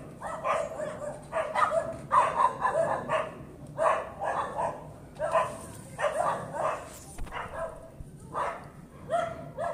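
Dog barking persistently in quick runs of several barks with short pauses between them: excessive, needless nuisance barking.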